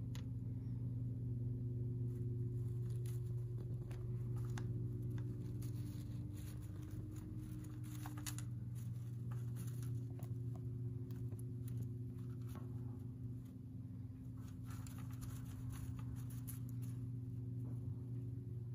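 Dzungarian hamster rustling and scratching in wood-shaving bedding: scattered light crackles and scrapes. Under them runs a steady low electrical hum.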